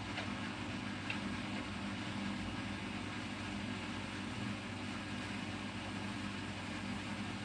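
Bosch Serie 6 front-loading washing machine running a cotton 60° wash: a steady machine hum with a faint click about a second in.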